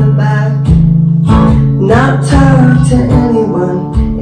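Acoustic guitar strummed in a steady rhythm, with a woman's voice singing over it.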